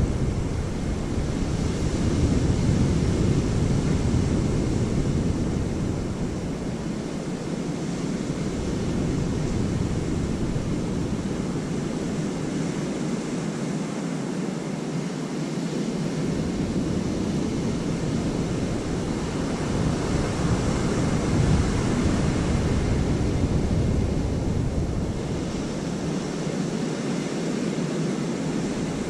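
Surf breaking and washing on a sandy beach, with wind buffeting the microphone in gusts that drop away for a few seconds at a time.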